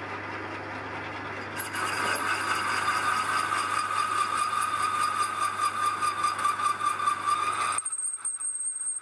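A metal lathe running while a boring bar cuts inside the hole of a metal tab on the faceplate, enlarging the bore. Under a steady motor hum, a steady high whine from the cut comes in about a second and a half in. Near the end the sound drops away.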